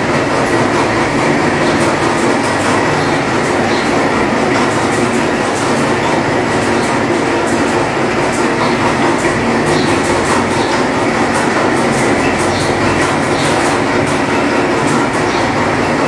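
Homemade gas-fired heater with a Stirling engine running: a steady, loud noise with faint irregular ticking over it.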